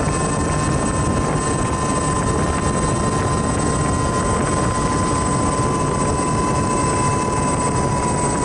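Quadcopter drone's four electric motors and propellers running steadily while it sits on the ground after landing: an even rushing noise with a steady high whine over it.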